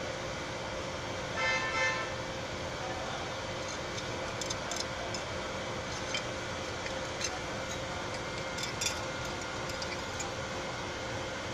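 Steady hiss, with a short horn-like toot about a second and a half in and a few faint ticks later on.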